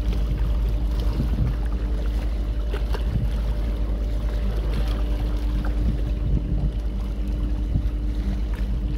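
Passenger catamaran's engines running steadily at low power as the vessel pulls away from the quay: a deep, continuous rumble with a steady hum.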